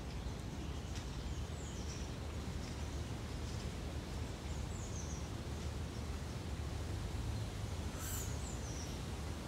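Steady low outdoor background rumble with a few faint, high bird chirps, the clearest about eight seconds in.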